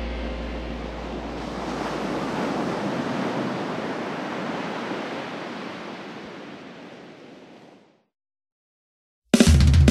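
The end of one hardcore punk song on the album: the last chord dies away under a rushing, surf-like noise that swells and then fades out. After a second of silence, the next song kicks in near the end with loud distorted guitars and drums.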